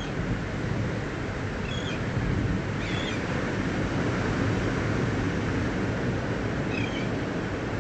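Steady rush of wind and ocean surf, with a few short high chirps from a small animal about two, three and seven seconds in.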